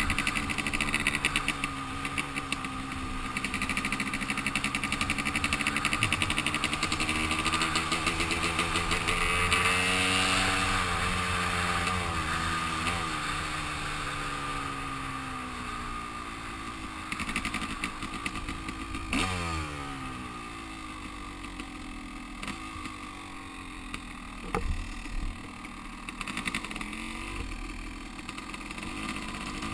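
Yamaha YZ250 two-stroke dirtbike engine running while being ridden, its pitch rising and falling with the throttle. The revs climb about a third of the way in, drop sharply about two-thirds of the way through, and the engine then runs lower and quieter. Wind noise is on the helmet microphone.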